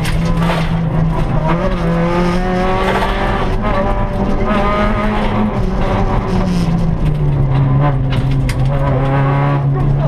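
Rally car engine pulling hard, heard from inside the cabin with road and tyre noise: the revs climb for a few seconds, then drop to a lower pitch about six seconds in and hold there.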